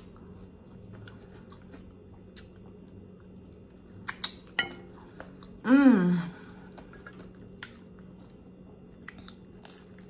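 A woman chewing a buffalo chicken wing close to the microphone: scattered soft wet smacks and clicks of the mouth, with one brief hummed "mmm" about six seconds in.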